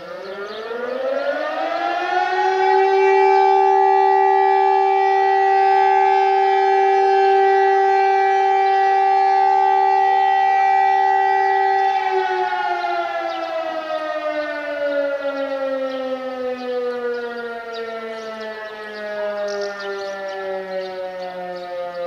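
Village fire siren, an electromechanical motor siren, sounding the volunteer fire brigade alarm: it winds up over about two seconds, holds a steady loud tone for about ten seconds, then slowly winds down, falling in pitch and fading.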